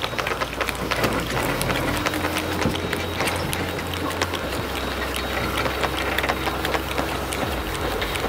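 Rapid mechanical clicking and rattling of a crank handle winding a caravan's corner steady legs, over a steady low hum.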